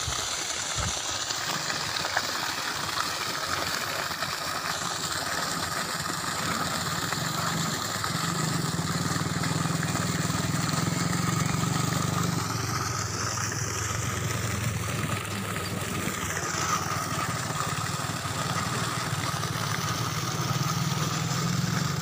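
Steady rush of water pouring out of a submersible borewell pump's outlet pipe and splashing onto the ground, over a constant low motor-like hum.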